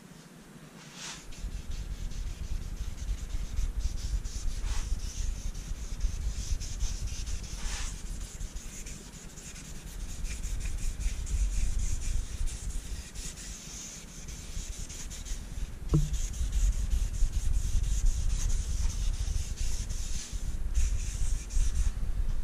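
Gloved hand rubbing a dye-soaked cloth back and forth over the maple top of a thinline Telecaster body, a steady scrubbing swish that eases off twice and picks up again, with one small knock about two-thirds of the way through.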